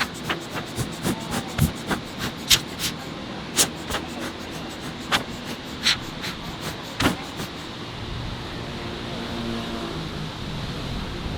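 City street ambience: a string of sharp, irregular clicks and taps over steady background noise, then a low traffic rumble swelling in the last few seconds as a vehicle passes.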